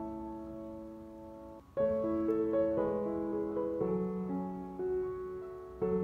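Background piano music: slow, soft chords of held notes, with a new chord struck about two seconds in and further notes changing after.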